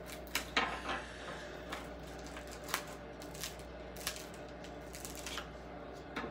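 Shattered glass of an iPhone 6S screen crackling in small, irregular clicks and snaps as the screen is pried off the phone.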